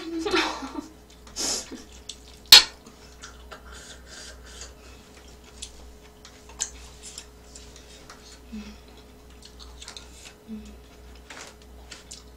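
Metal spoon and chopsticks clinking and scraping against a stainless steel pan while eating ramen, with one sharp loud clink about two and a half seconds in and scattered light clicks after it.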